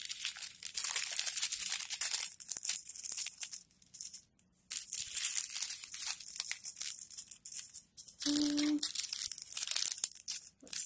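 Small plastic bags of diamond painting square drills crinkling as they are picked up and handled, with a short pause about four seconds in. A brief low hum sounds about eight seconds in.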